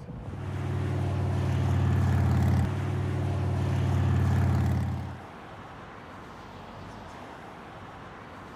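A motor vehicle engine running at a steady pitch, stopping abruptly about five seconds in. After that, only faint road and wind noise remains.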